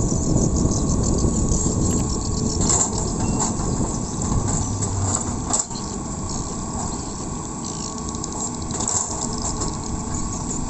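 Hitachi hydraulic excavator's diesel engine running steadily under load as the bucket works loose soil, with occasional clanks and rattles from the bucket and arm.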